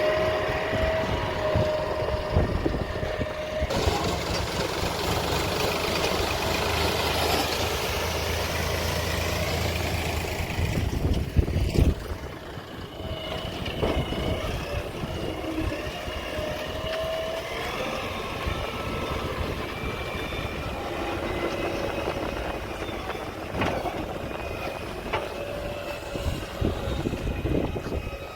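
Diesel engine of a JCB 3DX backhoe loader working. It runs harder for several seconds starting about four seconds in, a single knock comes near the middle, and then it settles back to a steadier, quieter run.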